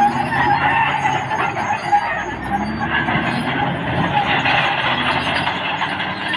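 Caterpillar D6R XL crawler bulldozer working, its diesel engine running steadily together with the clatter of its steel tracks.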